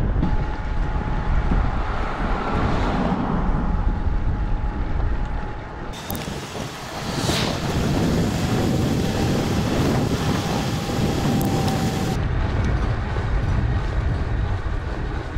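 Wind buffeting the microphone and tyres rolling on tarmac as a bicycle is ridden along a road, with a faint steady whine underneath. The sound turns brighter and hissier for several seconds in the middle.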